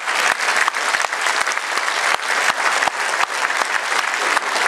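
Audience applauding: a steady wash of many hands clapping in a hall.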